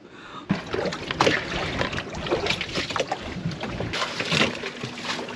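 Wind gusting over the microphone and water splashing around a boat alongside, with irregular knocks and clatter. It starts about half a second in.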